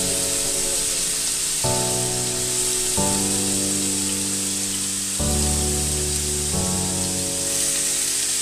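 Background music of sustained chords changing every second or two, over a steady high hiss of pork pieces sizzling in a hot grill pan.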